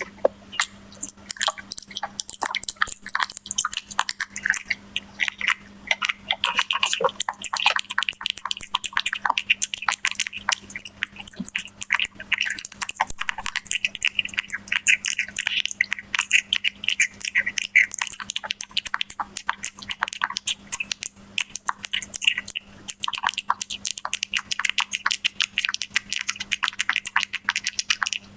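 A cat chewing and eating close to the microphone: a continuous run of rapid, irregular chewing and smacking clicks, with a steady low hum beneath.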